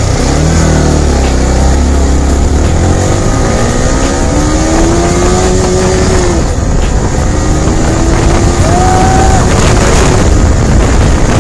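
Yamaha R15 V4's 155 cc single-cylinder engine accelerating hard from a standstill through the gears, its pitch climbing and dropping at each upshift. Heavy wind blast on the microphone covers much of it.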